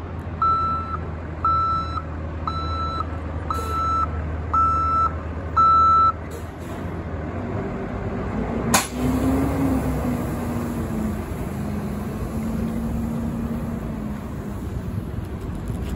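Asphalt distributor truck's reversing alarm beeping about once a second over its running diesel engine, stopping about six seconds in. About nine seconds in comes a sudden sharp hiss of air, after which a steady hiss and the engine's lower, even tone continue.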